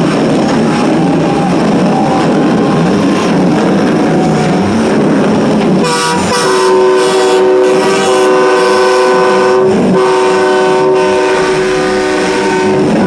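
Truck horns blaring together in a honk-off. About six seconds in, a steady multi-note horn chord takes over and holds, briefly broken near ten seconds.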